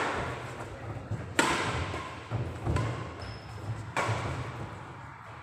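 Badminton rackets hitting a shuttlecock in a rally: three sharp cracks, at the start, about a second and a half in and about four seconds in, each ringing out in the echo of the hall, with low thuds of players' feet on the court between.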